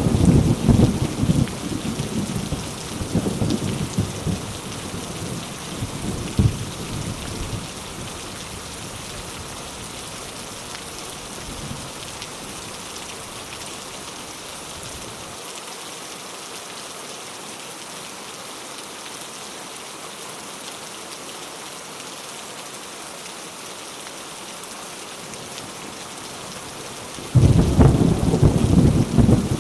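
Thunderstorm: steady rain falling, with a loud roll of thunder at the start that dies away over several seconds, then rain alone until another thunderclap breaks in near the end.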